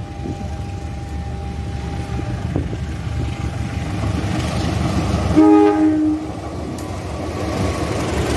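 CC201 diesel-electric locomotive sounding one short horn blast a little past the middle, over the rumble of the approaching train that grows louder as it nears.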